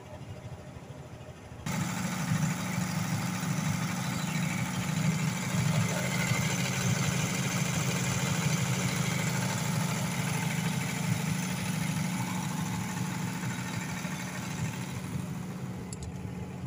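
Diesel generator set's engine running steadily at constant speed, with a strong low hum under a wide mechanical clatter. It becomes much louder all at once about two seconds in, as its compartment is opened, and eases off near the end.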